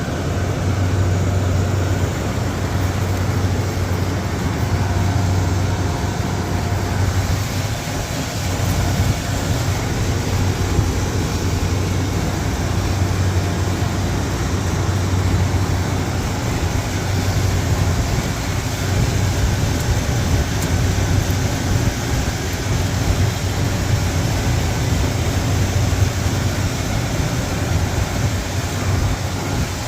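Refrigeration condensing unit running steadily while it is charged with refrigerant: a compressor's low hum under fan and airflow noise, with a hiss that grows stronger about seven seconds in.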